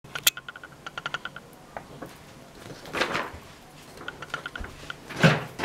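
A sheet of paper being handled, with a quick run of light clicks in the first second and a half and two louder rustles, about three seconds in and near the end.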